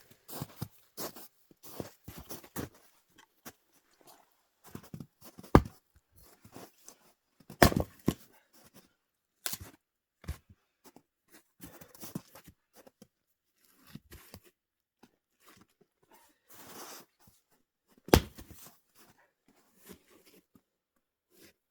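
Firewood being split and handled: a few loud, sharp axe strikes among many smaller knocks, cracks and crunches of wood.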